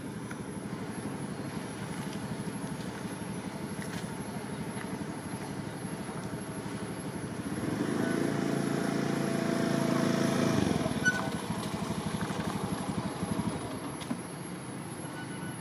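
A motor engine running with a steady low rumble, growing louder and more pitched about eight seconds in, then dropping back about three seconds later.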